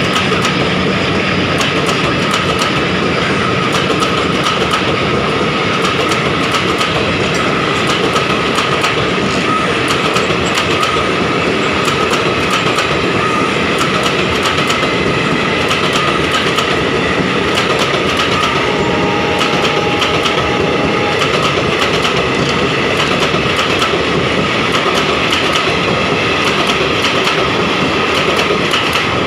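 Express passenger train passing at speed, its steel wheels clattering over the rail joints in a loud, steady clickety-clack.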